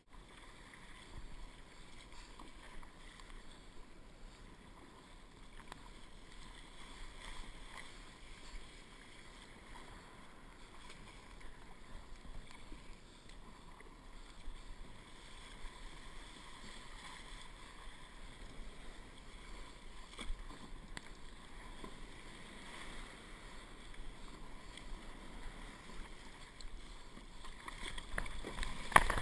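Water rushing and splashing around a kayak as it is paddled through surf to the beach, growing louder near the end as breaking whitewater washes around the hull. A single sharp knock just before the end.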